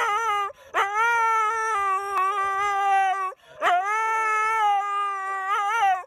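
Siberian husky howling in long, wavering calls, pausing briefly for breath twice.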